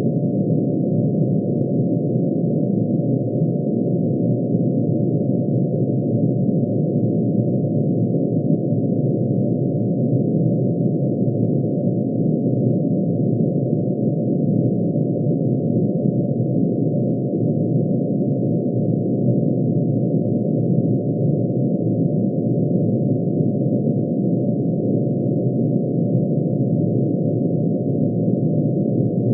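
Computer-synthesised sonification of mercury's atomic emission spectrum: many sine waves, one per spectral line, pitch-shifted into hearing range and summed into a dense, unchanging drone of tones crowded together in the low-to-middle range.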